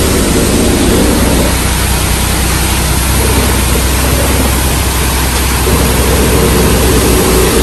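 Front-discharge concrete mixer truck's diesel engine running with a steady low rumble.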